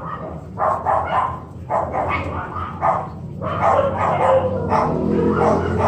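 A dog barking repeatedly, in short runs of barks.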